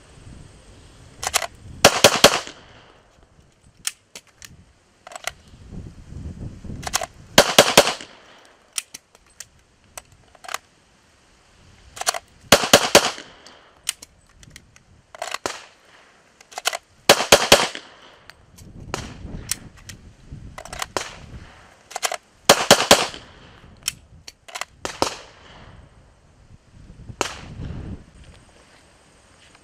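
Bursts of sharp metallic clicks, several in quick succession each time, repeated about eight times with quieter handling noise between: a pistol being loaded and drawn from a safety holster.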